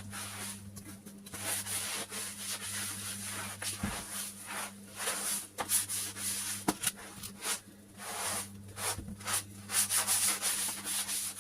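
Hand scrubbing strokes on a bare floor: an uneven run of rubbing swishes with short pauses, over a steady low hum.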